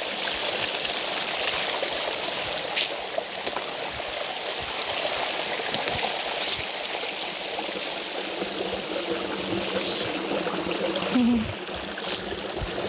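Small woodland creek and waterfall running over rocks, a steady rush of water, with a few sharp clicks over it.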